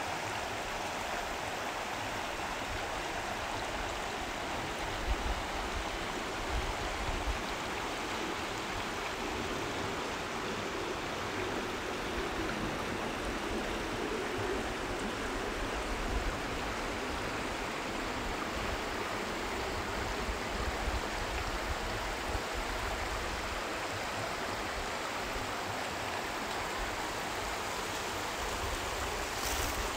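Steady rush of flowing water, even and unbroken, with a few soft low bumps and a brief click near the end.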